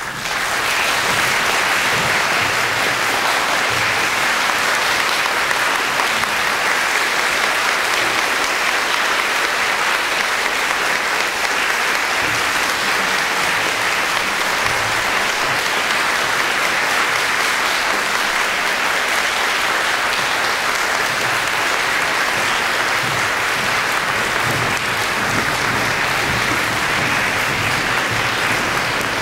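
Concert audience applauding at the end of a string ensemble's performance, breaking out all at once and then holding steady.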